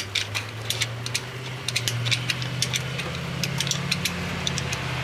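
Steady low mechanical hum that grows a little louder about two seconds in, with scattered light clicks and ticks throughout.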